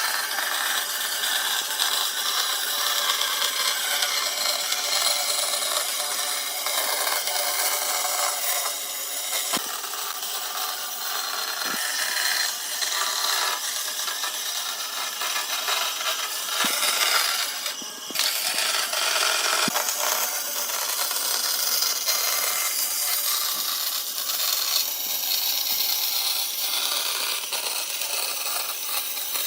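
Woodworking tools working on wood, a continuous rasping, cutting noise that dips briefly about two-thirds of the way through.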